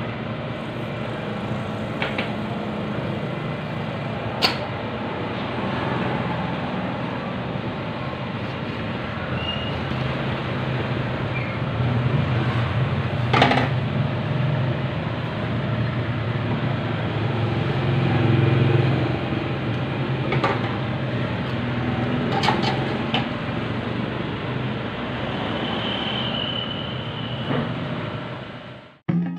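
A steady low rumble, swelling in the middle, with a few sharp knocks as a spirit level and a metal ruler are set down and shifted on the floor.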